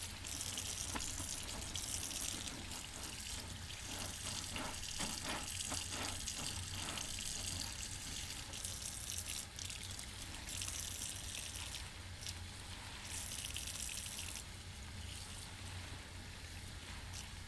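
Tap water running over a soapy sponge being rinsed in a sink, with a run of short wet squelches from squeezing the sponge a few seconds in.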